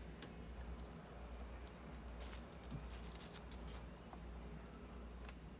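Faint light taps and rustles of hands handling a bun and carrot sticks on a countertop, over a low steady hum.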